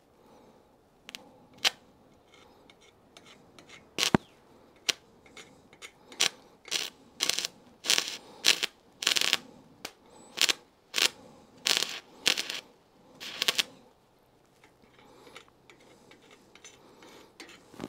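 Stick-welding arc run off two 12-volt car batteries in series (24 V), with a 2.6 mm electrode on 3 mm steel, crackling in a string of short sputtering bursts as the arc catches and breaks again and again. This is an unstable arc from too little voltage, though it does lay down some weld.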